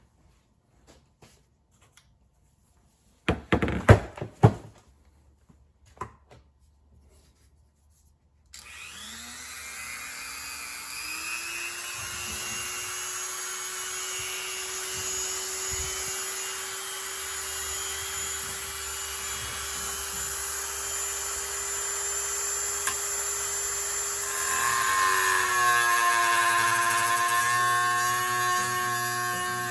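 A few knocks from handling, then a handheld Dremel rotary tool is switched on about eight and a half seconds in. It spins up with a rising whine and then runs steadily at high speed while sanding ramps into the slits of a PVC pipe. It grows louder toward the end.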